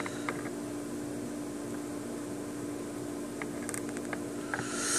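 Steady low hum and hiss of background noise, with a few faint light clicks as a small plastic action figure is handled.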